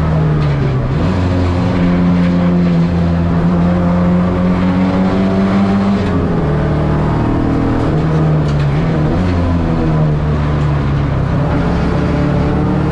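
Ford Escort XR3's CVH four-cylinder engine running hard under racing load, heard from inside the cabin. The engine note holds steady for stretches, dipping and climbing again in pitch about three times.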